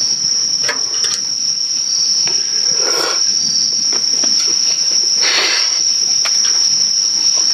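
Crickets chirping in a steady, high-pitched trill, with a few brief clicks and scrapes of chopsticks and bowls as two people eat.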